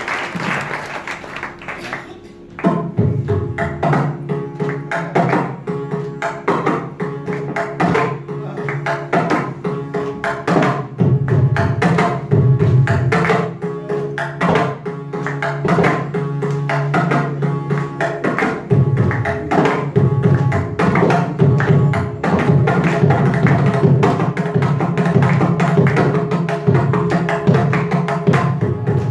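Mridangam and ghatam playing a Carnatic thani avartanam (percussion solo): dense, fast hand strokes with deep bass thumps over a steady drone. There is a brief lull about two seconds in, then the strokes pick up again.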